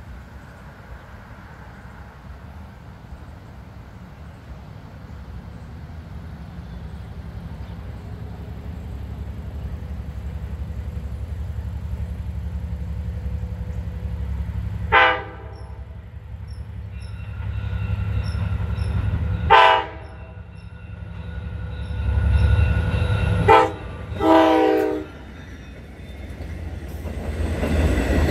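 Long Island Rail Road diesel train with bilevel coaches approaching, its engine rumble growing steadily louder, and sounding its multi-tone horn four times in a long, long, short, long pattern, the signal for a grade crossing. Near the end the train draws alongside and its wheels and cars pass close by.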